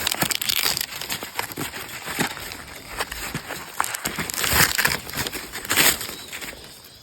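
Dry corn leaves and husks rustling and crackling in irregular bursts, with sharp snaps, as corn is harvested.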